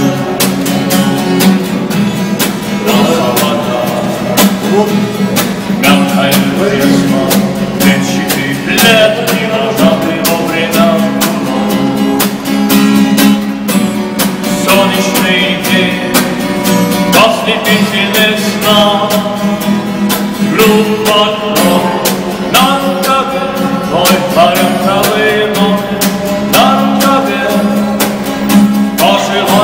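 A busker singing and strumming an acoustic guitar in a steady, quick rhythm.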